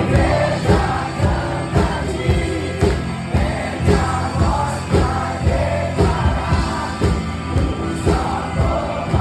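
Worship music with a steady drum beat and a group of voices singing.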